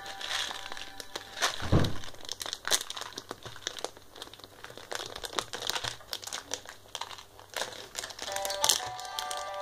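Plastic toy packaging crinkling and crackling as hands turn it over and work at it, in many short irregular crackles, with a single dull thump about two seconds in.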